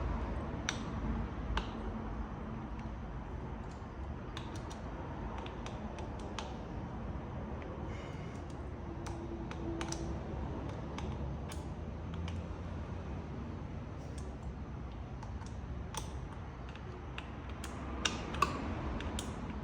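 Scattered, irregular light clicks and taps of a hand tool and small metal parts as the side cover screws of a geared e-bike hub motor are worked during reassembly, over a low steady hum.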